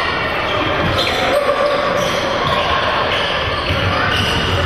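Basketball game play on an indoor court: the ball bouncing on the floor, with short high squeaks and the echo of a large gym.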